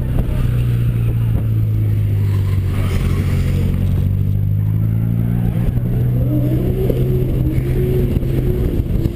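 Car engine running hard under throttle, heard from inside the cabin as the car is driven around a drift course; its steady note dips briefly about three seconds in, then picks up again.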